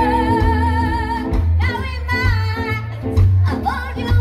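Live rockabilly band playing: a woman's voice holds a long note with vibrato, then sings on over electric guitar, upright double bass and drums.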